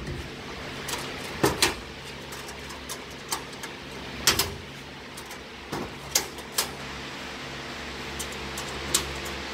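A string of sharp knocks and clacks, irregularly spaced, from hands-on fitting work. The loudest comes about four seconds in and a quick pair about a second and a half in. Under them runs a steady low hum.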